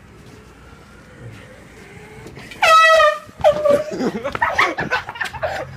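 Air horn blown once about two and a half seconds in: a loud, high, blaring blast lasting about half a second. It is followed by excited voices.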